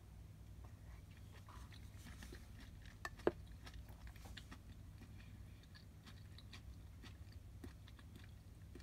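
Quiet close chewing of a mouthful of miso hotpot, with small wet mouth clicks over a low steady hum. About three seconds in comes a single sharp knock as a bowl is set down on the table.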